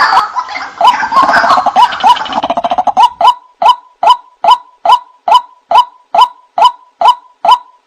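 White-breasted waterhen (ruak-ruak) bird-lure recording: rapid repeated croaking calls. The calls are dense and overlapping at first, then from about three seconds in settle into single notes at a steady pace of about two to three a second.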